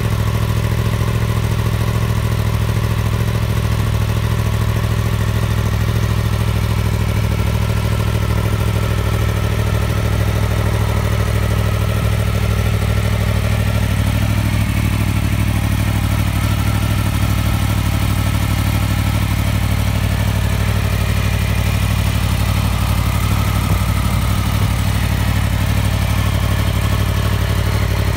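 Yamaha MT-10's 998 cc crossplane inline-four idling steadily, its exhaust running through a de-cat link pipe.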